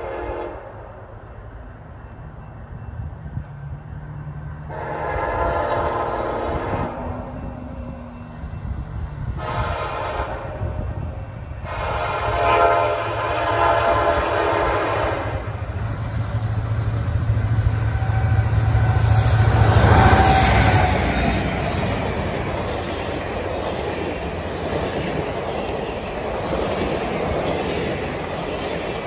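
Union Pacific diesel locomotive sounding its multi-note air horn as it approaches: three blasts, the last one the longest, typical of a grade-crossing warning. The locomotive then passes close with a deep engine rumble that peaks about two-thirds of the way through. The passenger cars follow, rolling by with steady wheel-on-rail noise.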